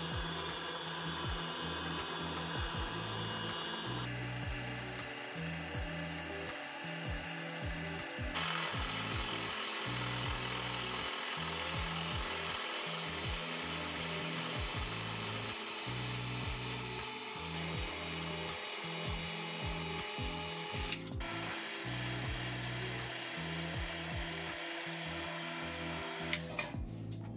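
Small milling machine running, its countersink cutter chamfering a metal bar, with background music over it. The machining sound changes abruptly a few times.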